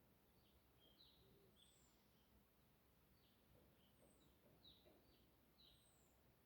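Near silence with faint, scattered high bird chirps.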